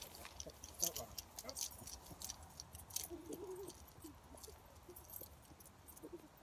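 Faint footsteps and small clicks of two people walking away along a grassy path, thinning out to near silence after about four seconds.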